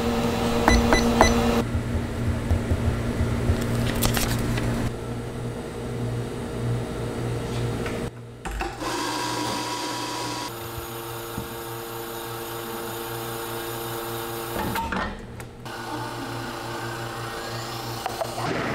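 Café machinery humming and whirring steadily at an espresso machine, its pitch and mix changing abruptly several times.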